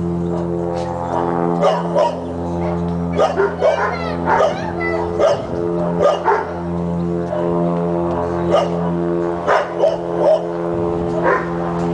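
A steady, even engine drone from the Goodyear blimp passing low overhead, with a dog barking repeatedly and irregularly over it, a couple of high yips in the middle.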